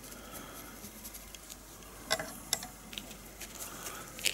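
A few light clicks and soft handling noise as silver bullion coins are set on and lifted from a felt-lined wooden coin-test slide: two small clicks about two seconds in and a sharper one near the end.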